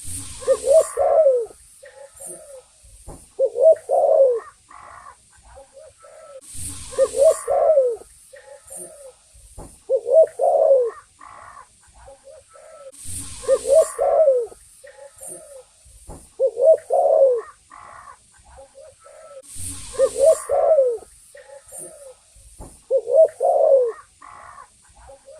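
Spotted dove (tekukur) cooing: a short phrase of several low coos repeated about every three seconds, eight times over. A faint hiss comes and goes every six or seven seconds.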